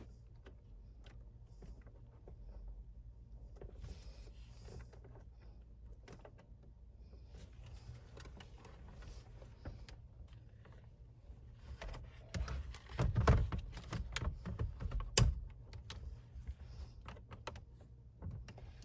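Car wiring and a CD changer unit being handled and pushed into place behind the dashboard: scattered clicks and rustling, with a run of louder knocks and bumps about two-thirds of the way through.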